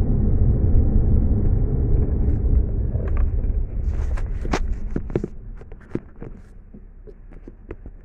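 Low rumble of a car's engine and road noise heard from inside the cabin, fading down about five seconds in. Over it, a run of sharp clicks and knocks as the camera is handled and moved.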